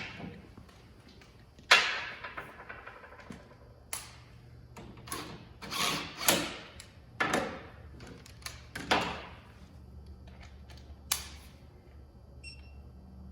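Metal hand tools clanking, clicking and scraping against the snow-bike rail hardware while the bogie wheel attachment bolt is tightened, in irregular sharp knocks with the loudest about two seconds in. Short electronic beeps sound near the end.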